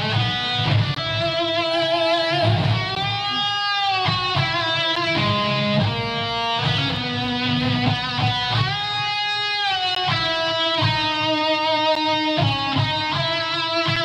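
Live blues band: an electric guitar plays lead, holding sustained notes that bend up and back down, over bass guitar and drums.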